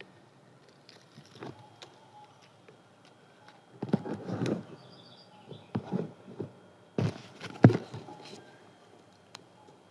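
Paper being handled and cut with scissors: irregular rustles and sharp snips, clustered about four seconds in and again around seven seconds, the loudest snip near the end.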